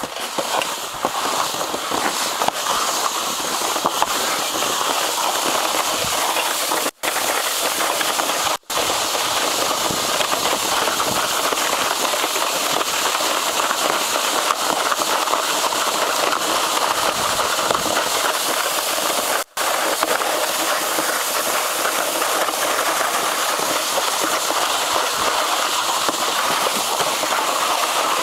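Steady hiss and scrape of a sled sliding down a track of fresh snow. The sound cuts out for an instant three times.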